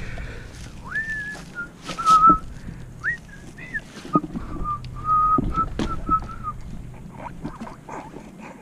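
A person whistling a short run of notes: a single pure tone that slides up about a second in, then holds and wavers for about five seconds. Scattered knocks and rattles sound under it.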